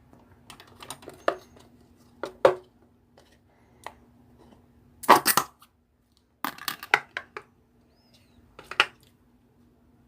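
Slime being squished and poked by hand, giving short bursts of crackling pops and squelches in about six clusters, the loudest about halfway through. A steady low hum runs underneath.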